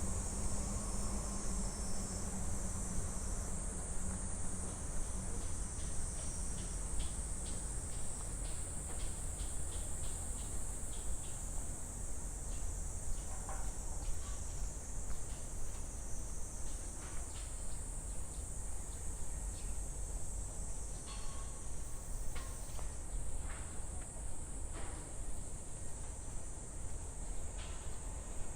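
Cicadas singing in a steady, high-pitched chorus, over a low background rumble, with short ticks from about a third of the way in.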